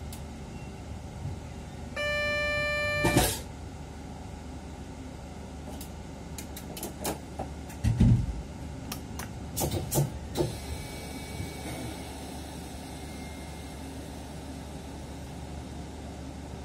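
Inside a train's driver's cab at a stand: a steady low hum from the train, broken about two seconds in by a single steady electronic beep lasting about a second and ending in a sharp click. Near the middle comes a dull thump, followed by a quick run of clicks.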